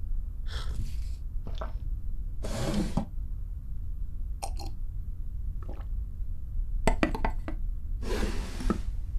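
Small objects being handled over a low steady hum: light clicks and clinks of glass and small wooden drawers, with a few short breathy sounds between them.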